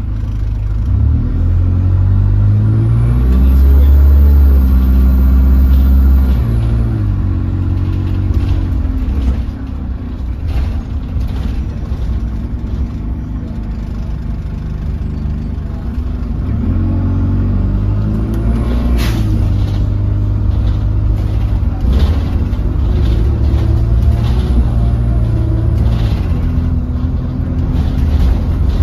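Alexander Dennis Enviro200 single-deck diesel bus heard from inside the saloon: the engine pulls away, rising in pitch as it accelerates, then eases off, and later pulls up through its gears again. A single sharp click comes about two-thirds of the way through.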